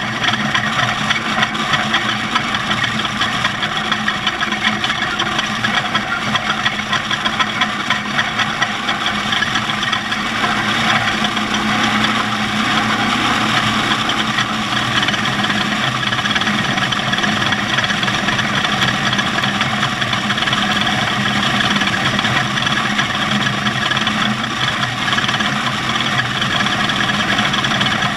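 Engine of an off-road race vehicle running steadily at an even level.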